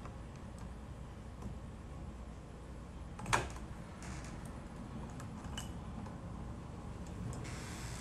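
Small clicks and taps of a smart lock's inner and outer halves being handled and lined up against a door, with one sharper click about three seconds in, over a low steady rumble.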